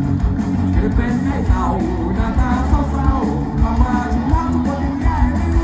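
Live band music at a concert, a singer's voice over loud, pulsing bass, heard from within the crowd.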